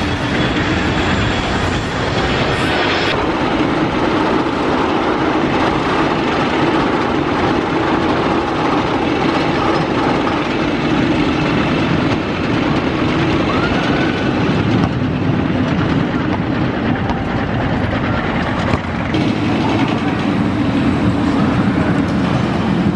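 Rocky Mountain Construction hybrid roller coaster train running along its steel track, a steady rumble of wheels on rail. The sound changes abruptly twice, about three seconds in and again near the end.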